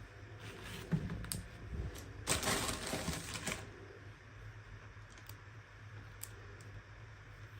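Small plastic toy packaging being handled and opened: a few sharp clicks, then about a second of crinkling rustle near the middle, with faint ticks after it. A steady low hum runs underneath.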